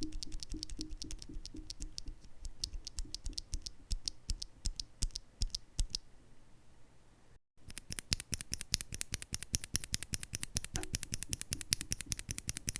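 Typing on a custom mechanical keyboard fitted with Gateron Black Ink linear switches and Artifact Bloom Series keycaps: a fast run of key clacks that thins out before a brief cut a little past halfway, then resumes.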